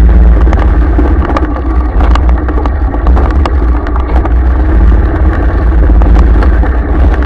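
A vehicle driving slowly along a rough dirt track, heard from a camera mounted on it: a loud, steady low rumble of wind and engine on the microphone, with frequent small clicks and rattles as it goes over the bumpy ground.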